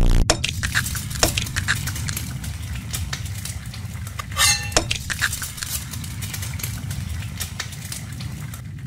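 Eggs frying in a metal frying pan: a crackling sizzle with metallic clinks against the pan, and one short ringing clink about four and a half seconds in.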